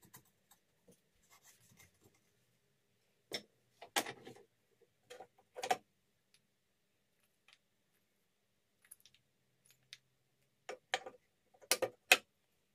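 Small wooden pieces and hand tools being picked up, set down and moved about on a wooden workbench and in a wooden toolbox: scattered sharp knocks and clicks, a handful a few seconds in and another cluster near the end.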